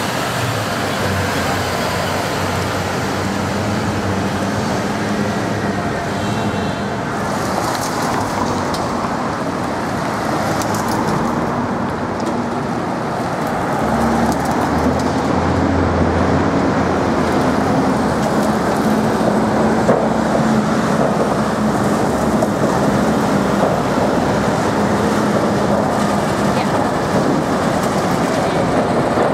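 City street traffic: buses and cars driving past with a steady engine and tyre hum. A deeper engine note swells for a few seconds around the middle.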